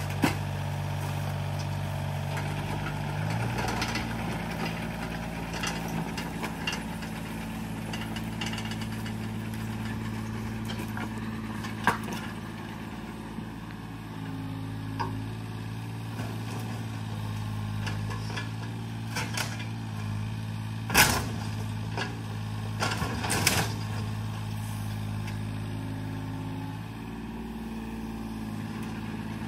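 Yanmar mini excavator's diesel engine running steadily, its note shifting about three seconds in as the hydraulics take load. A few sharp knocks and cracks of wood demolition debris break through, the loudest about two-thirds of the way through.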